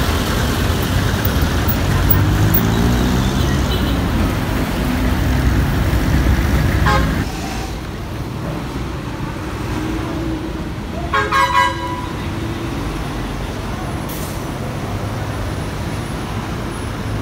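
Heavy truck's diesel engine running close by as the truck pulls the crashed truck in tow, its pitch climbing; it cuts off suddenly to quieter street traffic. A vehicle horn toots three short times about eleven seconds in.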